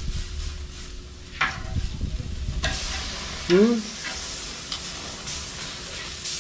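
Steaks sizzling steadily on a barbecue grill, with a couple of sharp clicks in the first half and a short murmur of a voice a little past halfway.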